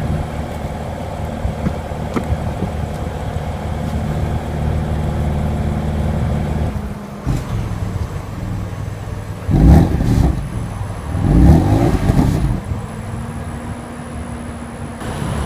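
BMW M4's 3.0-litre twin-turbo inline six running steadily, with two short, loud revs about ten and eleven-and-a-half seconds in before it settles back.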